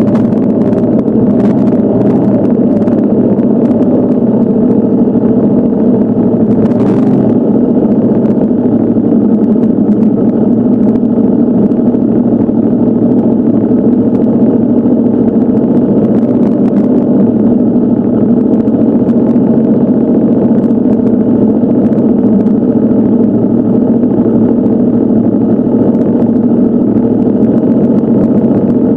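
Motorcycle engine running steadily at cruising speed while riding, the pitch holding level throughout.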